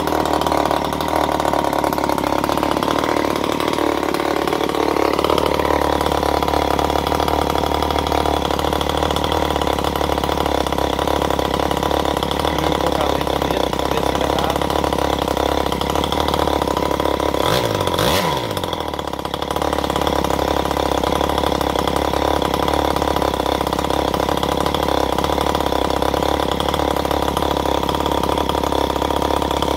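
Nakashi 26cc two-stroke brushcutter engine, fitted with a motorcycle CDI ignition, running on a test stand and turning a propeller. Its speed rises and settles a few seconds in, and about eighteen seconds in it briefly sags in level and picks up again.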